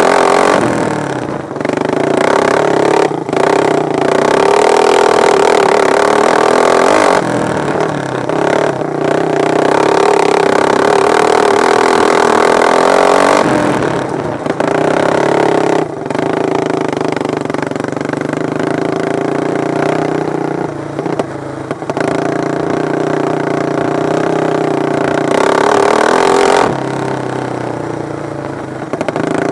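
Racing lawn mower engines running hard at high revs. Their pitch rises and falls as they accelerate and back off, and the sound swells and fades repeatedly as the mowers come past.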